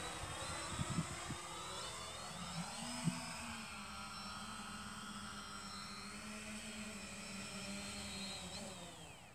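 Electric hover motors and propellers of a Foxy Slim VTOL drone buzzing and whining as it hovers down to land, several propeller tones shifting in pitch. Near the end the tones fall away as the motors spin down on touchdown.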